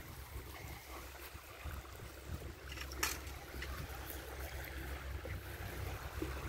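Wind buffeting the microphone: a steady low rumble with a light hiss over it. A single sharp click about three seconds in.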